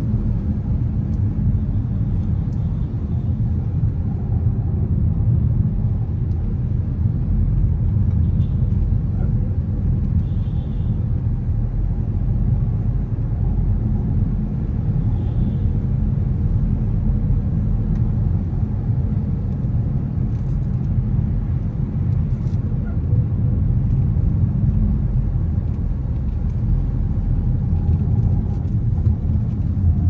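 Steady low rumble of engine and road noise inside the cabin of a moving car.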